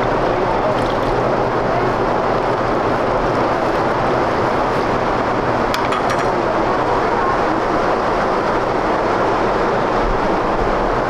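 Steady, loud rushing kitchen noise with a low hum underneath, unbroken throughout, and a few light clicks about six seconds in.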